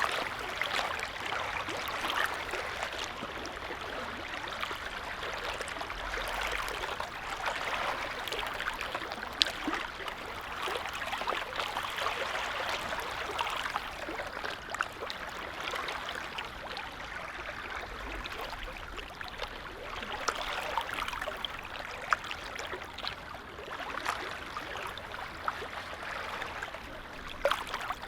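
Small waves lapping on a calm lake: a steady wash of water with many small splashes and drips, swelling and easing every few seconds.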